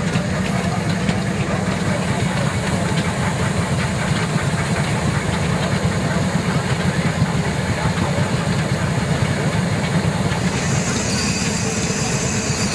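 Steam road roller running steadily, with steam hissing.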